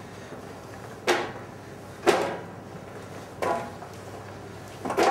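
Four sharp knocks with a short ring, irregularly spaced about a second or so apart, as handfuls of diced carrot are scraped off a plastic cutting board and dropped into a stainless steel tray.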